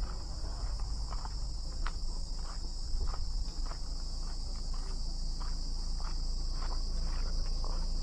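Steady high-pitched insect chorus from the surrounding forest, with faint footsteps ticking about twice a second on dirt ground.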